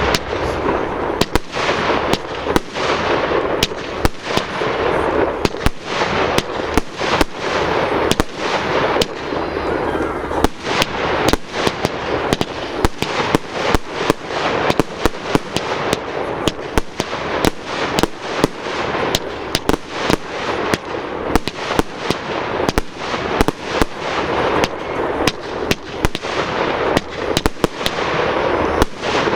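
Fireworks display going off without pause: rapid sharp bangs, several a second, over a constant crackle.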